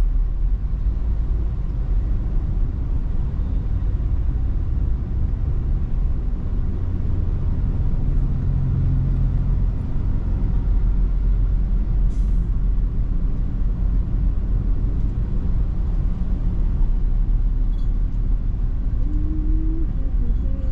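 Steady low rumble of a vehicle driving, engine and road noise heard from inside the cabin.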